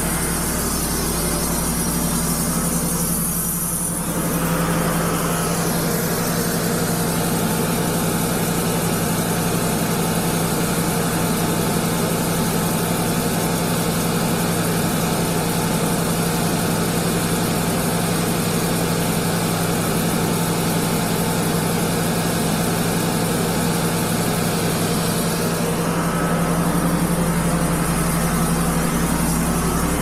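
Wood-Mizer LT35 bandsaw sawmill's engine running steadily, with a slight change in its sound about four seconds in and again near the end.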